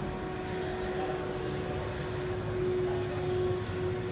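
Steady background hum of a large indoor exhibition hall: a constant droning tone over a low rumble, with no distinct events.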